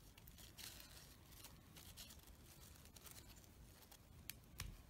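Near silence with faint rustles and light ticks of fabric petals and thread being handled while a fabric rosebud is bound; a slightly louder tick near the end.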